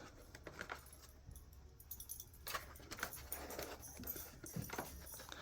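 Faint scattered plastic clicks and rattles from the Shark Vertex vacuum's dirt cup and cup screen being handled.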